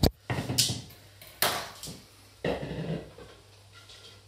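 Kitchen handling noises: a sharp knock at the start, then a few short clatters about a second apart, over a faint steady low hum.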